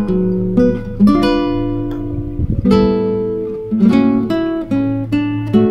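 Background music played on an acoustic guitar, with plucked notes ringing out one after another over lower held notes.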